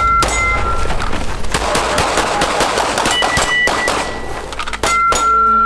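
A string of pistol shots fired in quick succession, heard over background music with a steady low beat and held tones.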